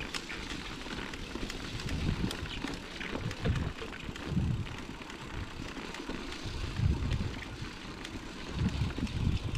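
Mountain bike rolling over a grassy forest track: tyre noise on the ground with small rattling clicks from the bike over the bumps, and wind buffeting the action camera's microphone in repeated low gusts.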